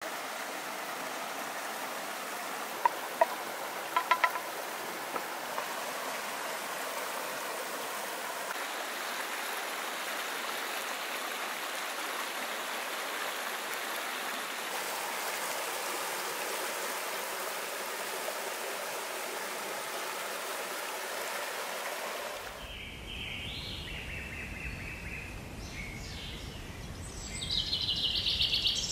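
Steady rushing of river water, with a few short sharp clicks about three to four seconds in. After about 22 seconds the sound changes to a low rumble with birds chirping.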